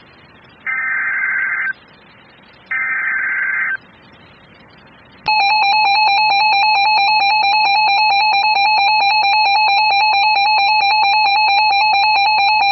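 Two bursts of Emergency Alert System SAME header data, each a harsh, buzzy warble about a second long, a second apart. About five seconds in, the loud, steady EAS two-tone attention signal starts and holds, a harsh beating drone announcing the severe thunderstorm warning.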